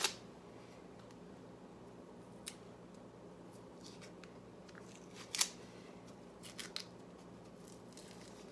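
Dry salami casing being peeled off by hand: a few short, sharp crackles and snaps of the papery skin tearing away from the meat, the loudest about five seconds in.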